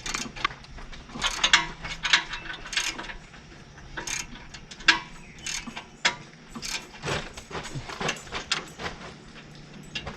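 Hand socket ratchet clicking in irregular runs as bolts on the bulldozer are worked.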